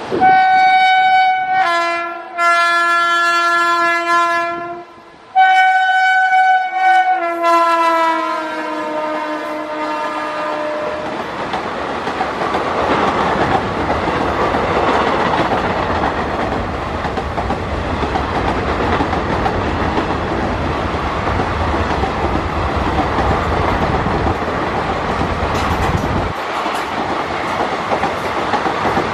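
WAP-7 electric locomotive's multi-tone air horn sounding two long blasts, the second falling in pitch as the locomotive passes at speed. After about eleven seconds the horn stops and the passenger coaches roll past with a steady rumble and wheel clatter on the rail joints.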